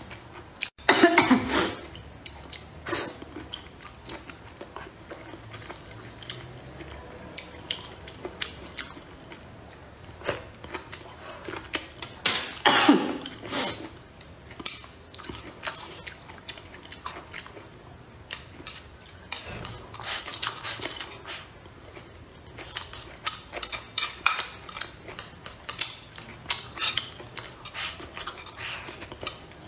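Close-up eating sounds: chewing a mouthful of soft braised eggplant, with a cough about halfway through. Near the end, chopsticks click and scrape quickly against a ceramic bowl as rice is shovelled in.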